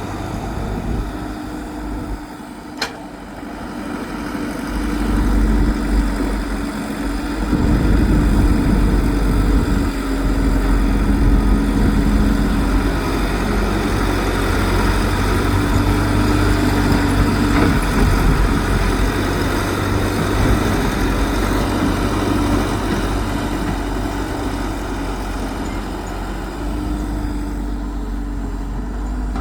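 Excavator's diesel engine running steadily, growing louder a few seconds in as it takes on work, with one sharp click about three seconds in.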